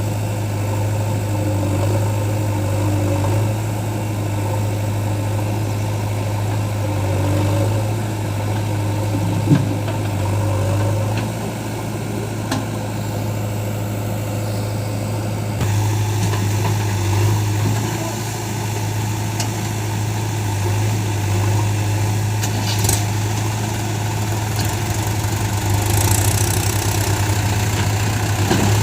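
Diesel engines of a backhoe loader and tractor running steadily at low revs, with a few faint knocks.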